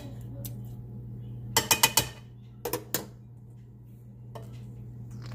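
Kitchen utensils and dishes clinking: a quick run of sharp clinks about one and a half seconds in, then two more about a second later, over a steady low hum.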